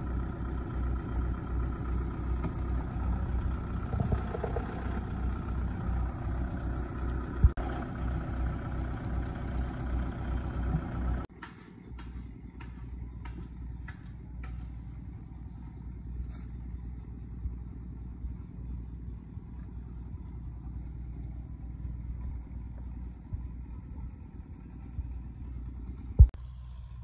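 Kubota M6040SU tractor's diesel engine idling with a steady low throb, dropping suddenly to a quieter hum about eleven seconds in. Two sharp knocks stand out, one about seven seconds in and a louder one near the end.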